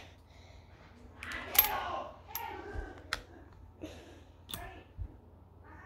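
A few sharp metallic clicks and clinks, spaced about a second apart, with some rustling from handling an airsoft revolver.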